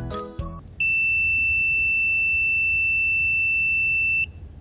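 Continuity buzzer of a Neoteck 8233D PRO pocket digital multimeter giving one steady, high-pitched beep for about three and a half seconds, starting about a second in and cutting off sharply. It sounds while the red and black test probes are held together, signalling a closed circuit of only a few ohms.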